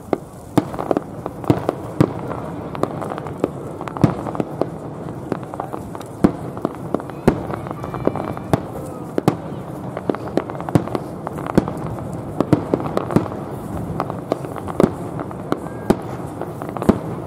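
Aerial fireworks shells bursting: an uneven run of sharp bangs, a few each second, without a break.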